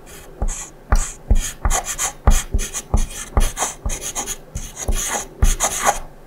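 Pen writing on paper in quick, irregular scratchy strokes, about three a second, each starting with a soft knock.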